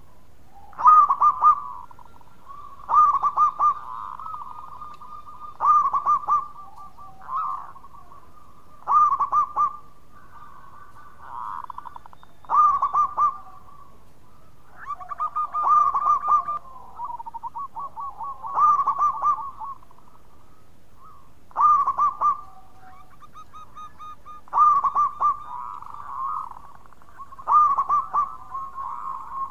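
Zebra dove (perkutut) singing its rapid, stuttering coo in loud phrases about every three seconds, about ten in all. Fainter dove cooing fills the gaps between the phrases.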